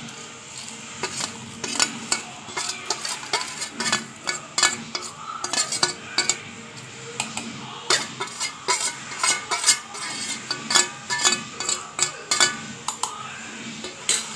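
Steel spoon scraping and clinking against a stainless steel plate and a steel mixer jar as roasted whole spices are pushed into the jar: many irregular metallic clinks and scrapes.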